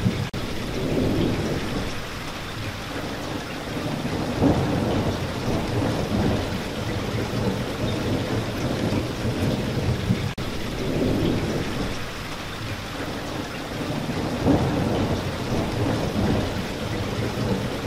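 Steady heavy rain with thunder rumbling in low swells every few seconds. The sound breaks off for an instant twice, near the start and about ten seconds in.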